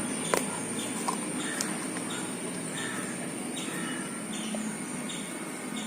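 A bird chirping repeatedly, about two short high calls a second, over steady background hiss, with a single click shortly after the start.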